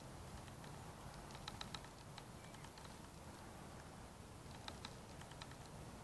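European robin giving faint, sharp tick calls in two quick runs, one about a second and a half in and one near five seconds, over a low background rumble.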